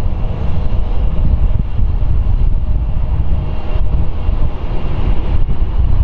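Distant rumble of an Airbus A340-300's four CFM56 jet engines at takeoff power on the takeoff roll, with a faint steady whine, under loud gusty wind buffeting the microphone.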